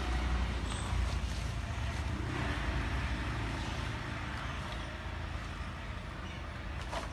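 Steady outdoor background noise, a low rumble under a hiss, with a brief rustle near the end as dry leaves are scooped up with cardboard and a dustpan.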